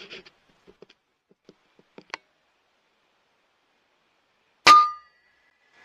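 A single shot from a PCP air rifle, an FX Impact M3 in .22 turned down to 650 fps, about three-quarters of the way in: a sharp report with a brief ringing tone after it. A few faint clicks come before it.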